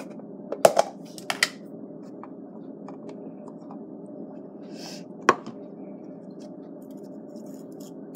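A butter container and knife being handled on a kitchen counter: a cluster of sharp clicks and light knocks about a second in, and one more sharp click past the middle, over a steady low hum.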